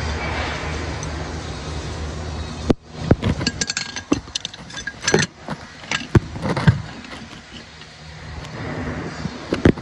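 Short stainless steel pipe pieces and metal fittings clinking and knocking as they are handled at a welding fixture: a run of sharp, uneven clinks. Before it, a steady workshop machine hum cuts off abruptly about three seconds in.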